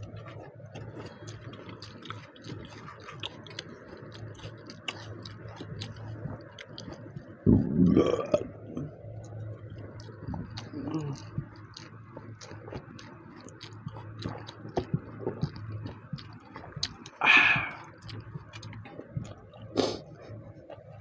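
Chewing and small wet clicks of eating rice and chicken curry, with a loud burp about seven and a half seconds in and another short loud vocal sound a little before the end.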